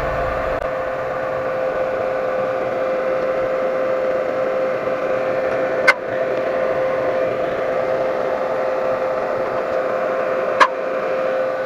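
MailTank MMA-400 inverter welding machine switched on and idling, its cooling fan running with a steady hum. Two sharp clicks, about six seconds in and near the end.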